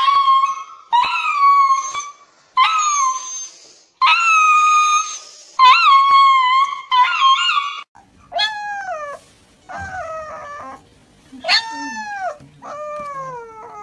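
A husky-type dog in a cone collar howls over and over while restrained for a vet's injection, each cry long and wavering, about a second apiece. After about eight seconds a small husky puppy takes over with short yelping cries that fall in pitch, about five of them.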